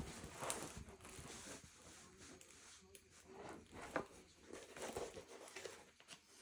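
Faint rustling and crinkling as a diamond painting kit is handled, with scattered light taps and rubs.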